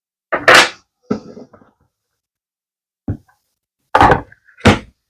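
Several short, sharp knocks and clacks as cured resin pieces are set down and picked up on a hard tabletop, the loudest about half a second in and around four seconds in.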